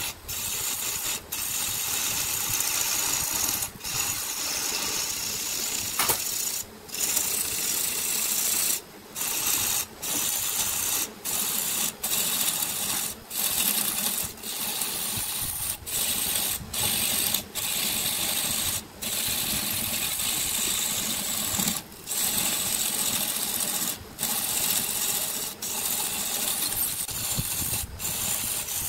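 Wood lathe turning a large wooden vessel while a gouge cuts the outside surface, a steady hissing cut broken by short sudden breaks every second or two as the tool comes off the wood.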